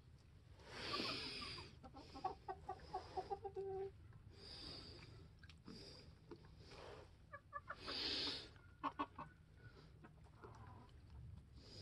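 Faint clucking of domestic hens. A quick run of clucks about two seconds in draws out into a longer note, and another burst of clucks comes later. Two soft rushes of noise are heard between them.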